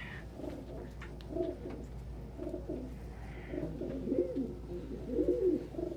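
Domestic pigeons cooing, several low warbling coos one after another.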